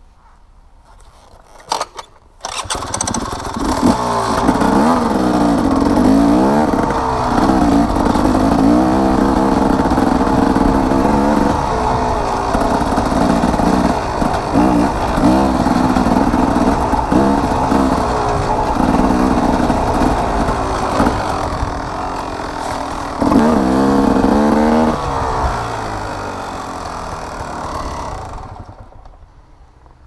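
Enduro dirt bike engine ridden hard, revving up and dropping back again and again under the throttle. It comes in about two and a half seconds in and fades out near the end.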